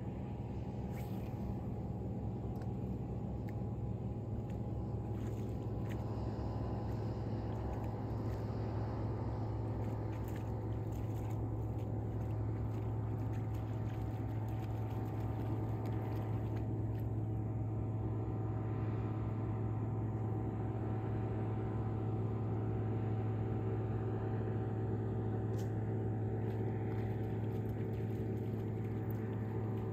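A steady, unchanging engine hum with a strong low drone, with a few faint splashes or clicks on top.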